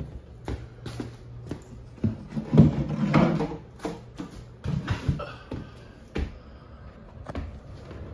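Irregular knocks, clicks and bumps of handling over a steady low hum.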